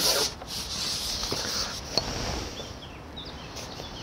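Wind rumbling on the microphone outdoors, with a gust of hiss fading just after the start, a couple of faint clicks, and a few faint bird chirps near the end.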